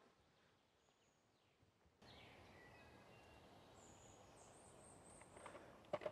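Near silence, then from about two seconds in faint woodland ambience with a few short, high bird chirps. Two soft clicks near the end.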